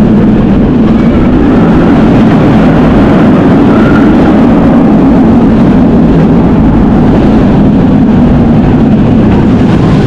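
Kumba, a steel looping roller coaster, running at speed, recorded on the ride: a steady, very loud low rumble of the train mixed with wind rushing over the microphone.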